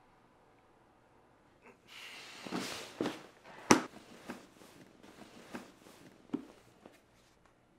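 Red plastic file box being picked up and handled: starting about two seconds in, rustling with several sharp plastic clicks and knocks, the sharpest one about three and a half seconds in.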